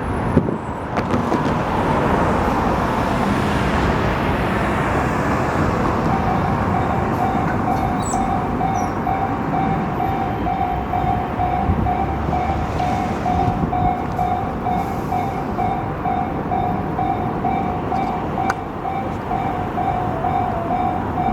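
Railway level-crossing alarm starts about six seconds in, a repeated electronic bell tone that keeps ringing, over continuous road traffic noise.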